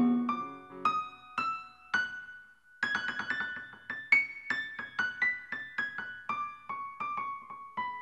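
Background music: clean electric piano playing single notes. A chord dies away at the start, three notes climb one by one, and after a short pause a quicker, steady run of notes follows, about three a second.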